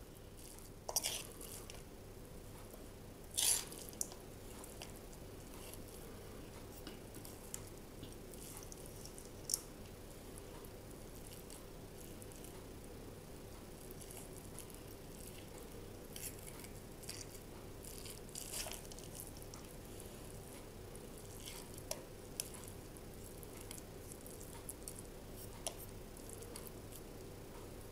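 Metal spoon scooping and pressing minced-meat stuffing into green bell peppers over a stainless steel bowl: quiet squishing and scraping, with a few sharp clinks of the spoon against the bowl.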